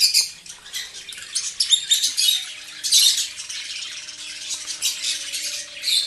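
A colony of lovebirds calling together: many short, high-pitched squawks and chirps overlapping in a constant chatter.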